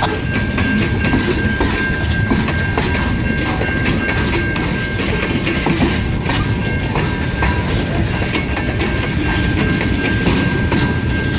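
Long freight train rolling past, its car wheels clacking over the rail joints with a steady rumble and a thin, steady high-pitched whine above it.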